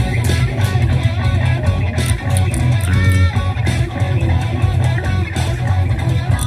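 Rock music from a Harley-Davidson Motorcycles slot machine's free-games bonus, with electric guitar over a heavy, steady bass line.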